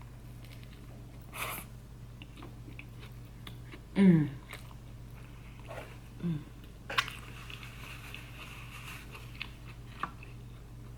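Close-up eating sounds: a person biting and chewing food. About four seconds in comes a short, loud vocal sound falling in pitch, with a smaller one about two seconds later. A soft hiss runs for a couple of seconds in the second half, with a few clicks.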